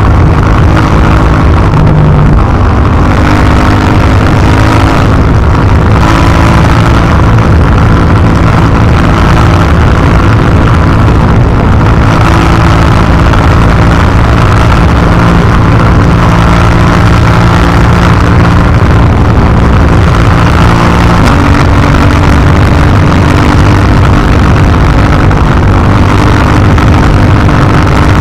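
KTM 790 Duke's parallel-twin engine through its stock exhaust, running at steady road speed. The engine note holds level for stretches and steps to a new pitch several times as the throttle and gears change.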